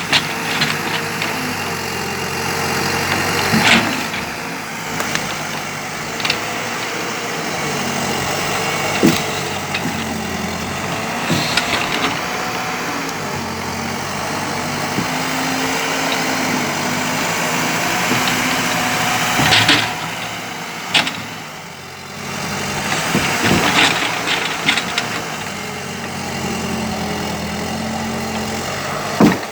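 Engine running steadily to drive an Implanor CF220 hydraulic forestry log loader, its pitch shifting slightly with load, with occasional sharp knocks.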